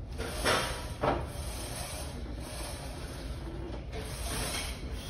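Plate-loaded leg press in use: the loaded sled moving on its rails over a steady low hum. There are two short rushes of noise about half a second and a second in.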